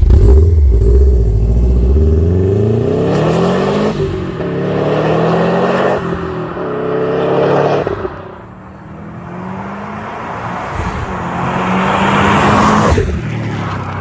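Subaru STi's turbocharged flat-four engine under hard acceleration after its longblock rebuild, its pitch climbing and dropping back several times.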